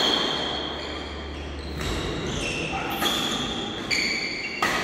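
Badminton rally: rackets striking the shuttlecock in sharp cracks a second or so apart, with sports shoes squeaking on the court mat between shots.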